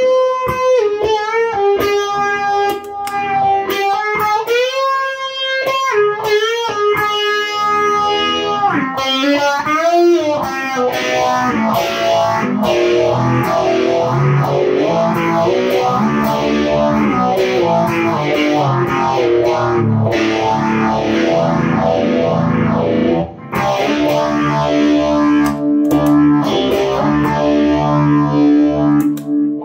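Electric guitar, a single-coil Fender American Stratocaster, played through effects pedals into a Fender Twin Reverb amp. For the first ten seconds or so it plays single-note lead lines with string bends, then shifts to a thick wash of many overlapping notes.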